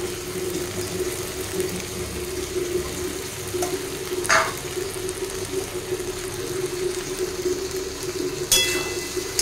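Mahua fruit and small dried fish frying in a metal kadhai: a steady sizzle over a steady low hum. A utensil clinks against metal about four seconds in, and again with a brief ring near the end.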